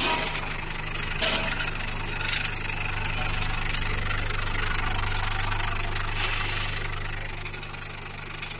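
Trough-type vibratory finishing machine running: a steady low hum from its vibratory motor under a constant rattle of the media tumbling in the trough, with a couple of short knocks near the start.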